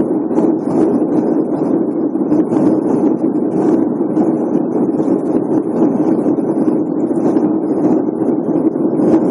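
Steady cabin noise of an airliner in flight: an even rush of engine and airflow noise.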